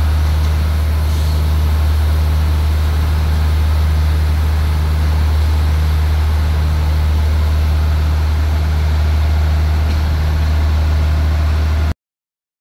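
Steady low drone of a standing passenger train's diesel engine idling, cutting off abruptly near the end.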